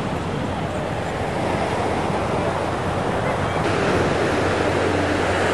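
Ocean surf washing onto a sandy beach, a steady rush of breaking waves, with wind rumbling on the microphone.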